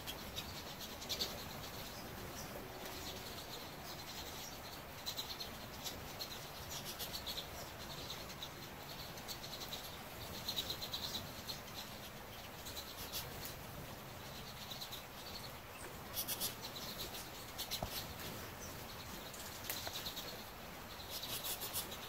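A flock of pine siskins feeding at a seed log, giving clusters of short twittering chirps every second or two, with scattered scratchy clicks.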